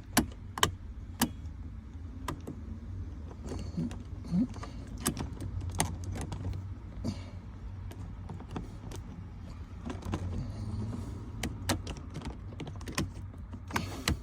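Irregular clicks and knocks of a billet aluminium shift knob being worked and twisted against the Hummer H2's gear shifter, over a steady low hum.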